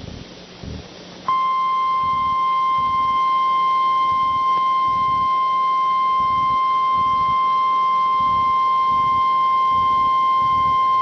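Emergency Alert System attention tone for a tornado warning: a single steady high beep that starts about a second in and holds unchanged for about ten seconds. It signals that a warning bulletin is about to be read.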